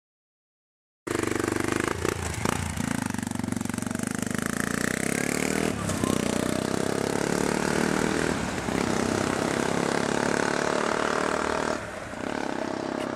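Yamaha MT-03 motorcycle with a Takkoni end silencer, its dB-eater insert fitted, running past on the road. The engine starts about a second in and stays steady and loud until a drop in level near the end as the bike moves away.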